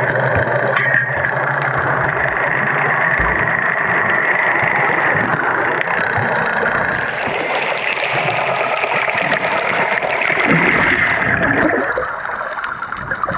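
Underwater water noise: a steady, muffled rushing and gurgling of water with snorkelers kicking and splashing at the surface above. It eases slightly near the end.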